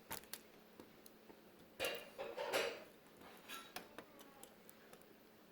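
Small plastic clicks and taps from cable connectors being worked loose and unplugged on a flat-screen TV's circuit boards, with a short burst of scraping and handling about two seconds in.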